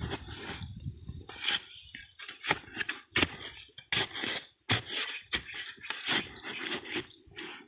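Irregular scraping and wet squelching strokes, several a second and uneven, as hands dig into wet mud and water in a catfish hole.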